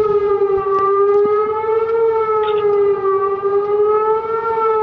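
Outdoor civil defense tornado warning siren sounding a steady wail, its pitch wavering slightly up and down, signalling a tornado warning.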